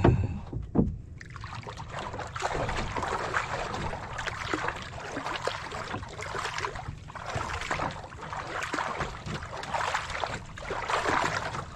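Sea water splashing and sloshing against the hull of a small boat in a swell, with two knocks on the boat right at the start.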